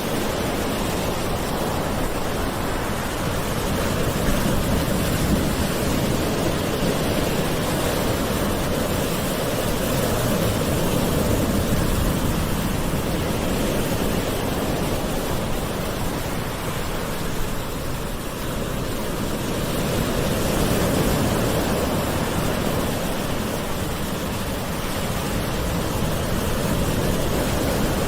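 Gentle ocean waves washing ashore: a continuous hiss of surf that swells and eases slowly every several seconds.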